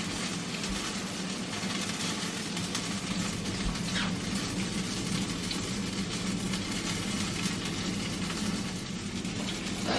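Steady low hum with an even hiss over it, and a couple of faint soft bumps.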